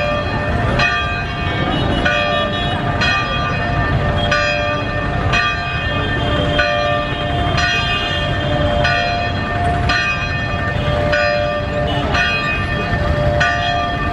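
Church bells ringing, about one stroke a second, the pitch changing from stroke to stroke as if two or more bells take turns, over steady crowd noise.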